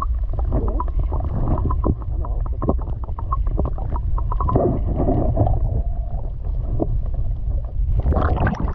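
Muffled sound of a GoPro held underwater in the sea: a heavy, steady low rumble of moving water with many small bubbling pops and crackles, the waterlogged microphone sounding dull and filled up. It drops away sharply at the very end.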